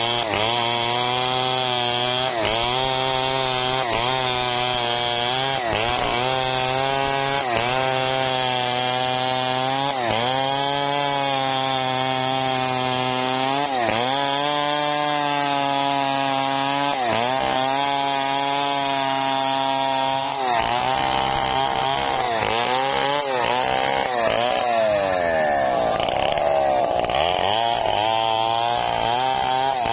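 Petrol chainsaw ripping lengthwise through a mahogany log, running at high revs under load. Its pitch dips and recovers every couple of seconds, and over the last third it wanders up and down.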